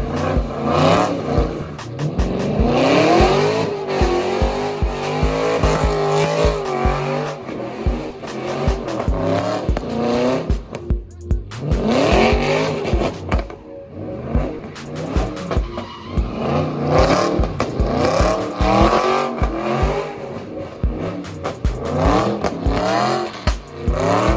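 Cars drifting on wet pavement, engines revving up hard with tyres squealing, the revs climbing twice: shortly after the start and again about halfway. A hip-hop beat with a steady deep kick plays over it.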